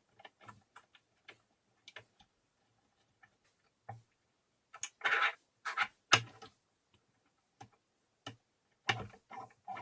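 Irregular clicks and light knocks of small parts and hand tools being handled during assembly, with a louder cluster of clatter about halfway through and another near the end.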